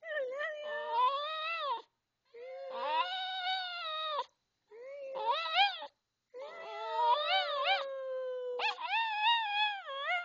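Maltese dog "singing": about five drawn-out, wavering howls with short breaks between them, each rising and falling in pitch.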